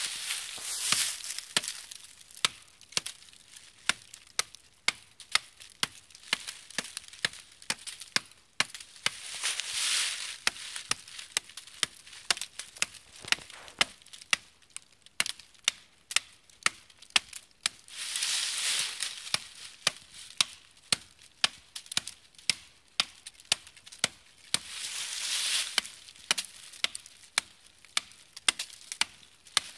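Repeated chops of a small credit-card axe blade, zip-tied onto a stick handle, biting into a thin sapling trunk, in runs of about two strokes a second. A few stretches of rustling come between the runs.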